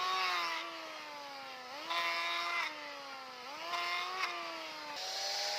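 A power tool's motor running steadily, its pitch sagging slowly and then jumping back up three times, as it does under load and release.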